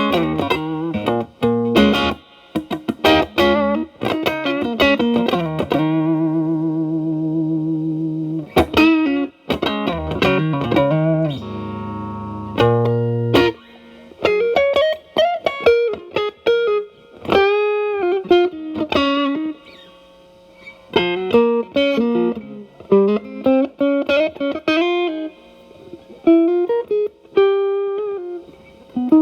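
Telecaster electric guitar played through an E.W.S. Brute Drive distortion pedal set to high gain, into a Marshall Valvestate amp's clean channel. It plays lead lines of quick picked notes and bent notes, with a long held note with vibrato about six seconds in and a low sustained chord about twelve seconds in.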